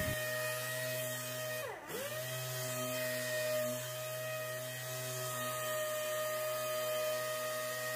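Pneumatic air sander with 600-grit paper running at high speed, dry sanding a car's clear-coated body panel: a steady whine that dips sharply in pitch about two seconds in and spins straight back up.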